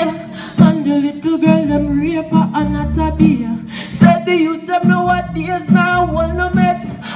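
Male reggae singer singing live into an amplified microphone, accompanied by electronic keyboard chords and bass.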